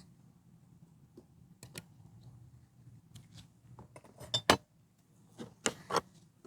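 Light clicks and clinks of hands working a bee package and its fittings, with a few louder knocks about four and a half and six seconds in, over a faint low hum.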